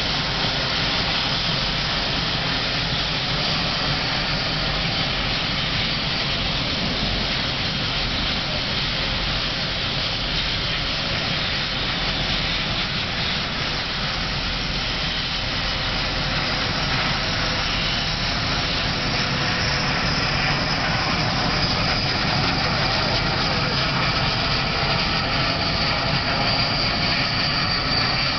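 BAE Hawk T1 jets' Adour turbofan engines running steadily as the aircraft taxi past, a continuous rush of jet noise with a high whine that grows stronger over the last several seconds.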